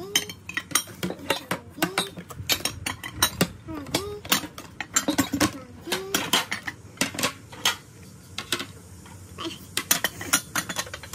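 Ceramic dinner plates clinking and knocking against each other as they are lifted out of their packaging and stacked, with many sharp clinks that thin out briefly past the middle.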